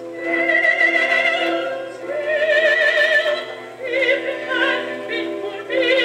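A 33 1/3 RPM record of operatic singing played through the Illustravox Standard Jr.'s tube amplifier and built-in speaker. A singer holds wavering notes about a second long each, with accompaniment and no deep bass.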